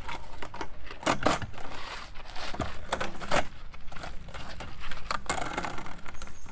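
Concrete block being handled and set down over a corrugated plastic conduit: a series of short gritty scrapes and knocks, the sharpest just after a second in, near three seconds and just past five seconds.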